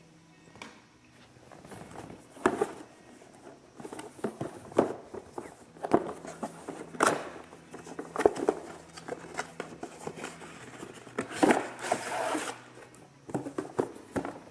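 Cardboard packaging of a router being handled and opened: irregular scrapes, taps and rustles as the inner box slides out of its printed outer sleeve, with a longer rustling scrape about eleven seconds in.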